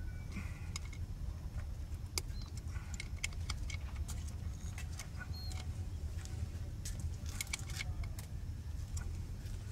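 Small metal clicks and light rattles as a gimbal's quick-release plate is fitted and screwed onto the base of a camera, over a steady low rumble.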